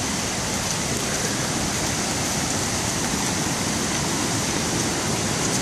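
Steady, even rush of running water from a stream swollen by days of rain.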